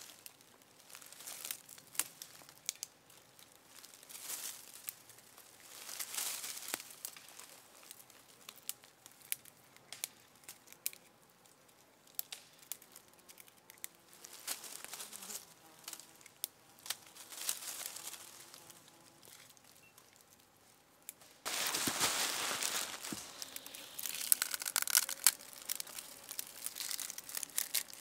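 Dry forest material crinkling and tearing as it is worked by hand: scattered soft rustles and small snaps, then about three quarters of the way through a sudden switch to louder, denser crunching of dry leaves and tinder being handled.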